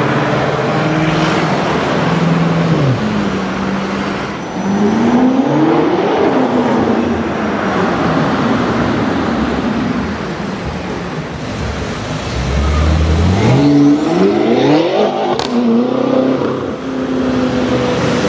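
BMW M5 F10's twin-turbo V8 accelerating in two rising pulls, the first about five seconds in and the second about thirteen seconds in, over steady city traffic.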